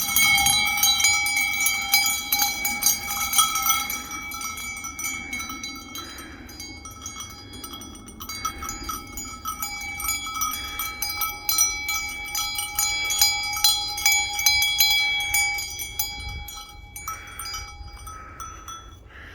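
Metal bells ringing and clinking over and over, each strike leaving the same set of steady ringing tones.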